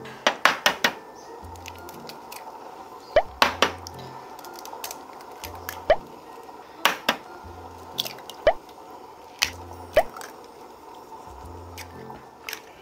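Wet eating sounds from ramyeon in spicy broth: sharp wet smacks and clicks, several ending in a short falling plop. Soft background music with a low pulse about once a second runs under them.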